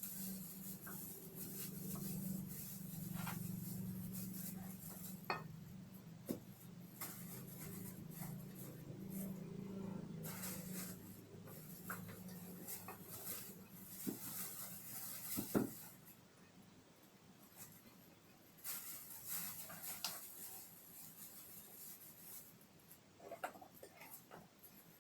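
Scattered light clinks, knocks and rubbing of hard objects being handled, with a sharper knock about 15 seconds in, over a low hum that fades out about two-thirds of the way through.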